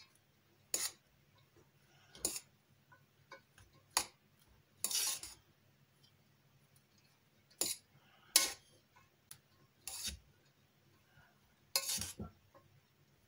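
Cutlery and dishes clinking and scraping now and then: about eight short, separate knocks and clinks with quiet gaps between them.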